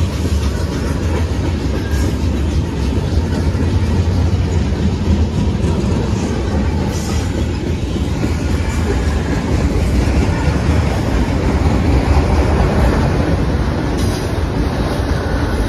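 Freight cars rolling past close by (tank cars, a covered hopper, then autorack cars) in a loud, steady rumble of steel wheels on the rails.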